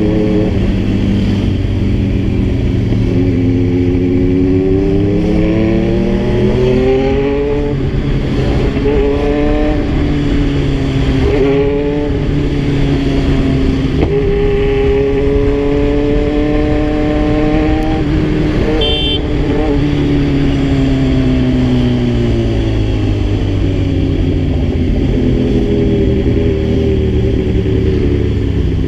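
Kawasaki Z1000's inline-four engine under way, climbing in pitch through the gears with a sharp drop at each upshift, then holding a steady cruise before easing off, over a constant wind rush. A short high beep sounds about two-thirds of the way through.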